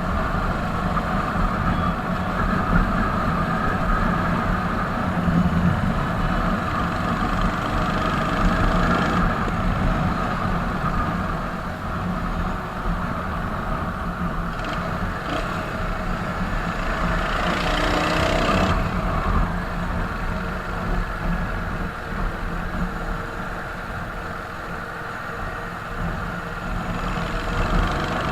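Royal Enfield Hunter 350's single-cylinder engine and exhaust running steadily while the motorcycle cruises on a highway. A louder rushing noise passes briefly about two-thirds of the way through.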